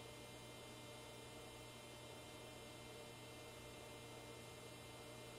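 Near silence: a faint steady low hum with light hiss.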